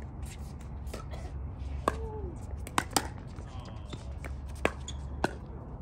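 Pickleball rally: paddles striking a hard plastic pickleball, about five sharp pops a half second to a second apart, over a steady low rumble.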